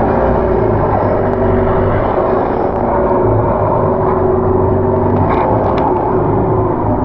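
Longtail boat's engine running steadily under way, a constant low drone with wind and water noise over it.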